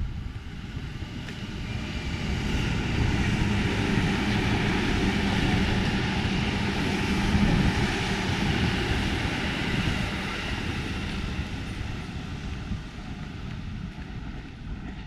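A large vehicle passing by: a rushing rumble that swells over the first few seconds, holds for several seconds, then fades away.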